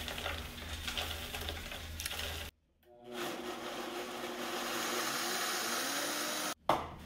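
Dried acorn meal clumps poured from a tray into a blender jar, pattering for about two seconds. After a short break, a countertop blender runs steadily, grinding the dried acorn meal into flour, and its motor tone creeps up a little near the end. The blending cuts off abruptly.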